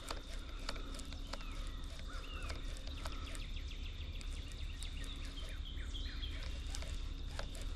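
Outdoor creekside ambience: a few short chirping bird calls in the first half over a steady high thin insect-like whine and low rumble, with scattered irregular ticks throughout.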